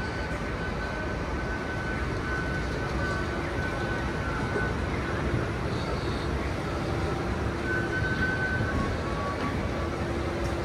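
Steady low rumble of city traffic around an outdoor escalator that is running, with a faint thin whine that comes and goes.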